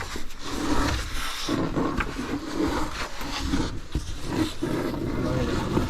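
A caver crawling over rock: clothing and gear scraping and rustling against stone close to the microphone, in uneven strokes.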